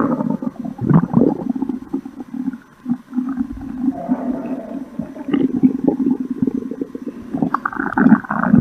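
Stomach grumbling and gurgling: a continuous low, churning rumble with louder surges about a second in and again near the end.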